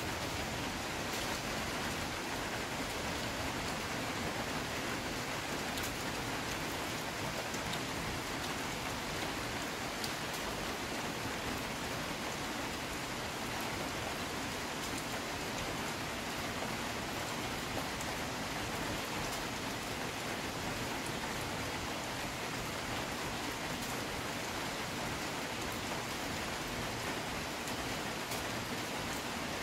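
Steady rain falling on dense tree foliage and a wet concrete ledge: an even hiss with a few faint sharper drop ticks.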